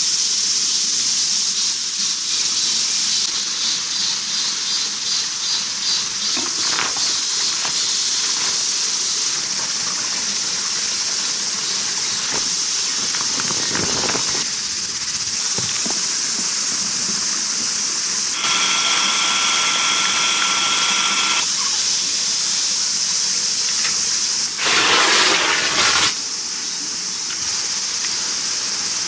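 Steady high insect chorus, like crickets or cicadas, with scattered light clicks and rustles. A short held two-pitched tone sounds past the middle, and a louder rustling burst comes near the end.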